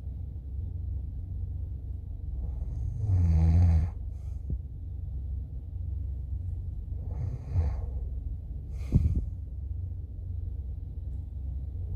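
A person snoring, with one loud snore about three seconds in and softer snoring breaths roughly every four seconds after, over a steady low rumble.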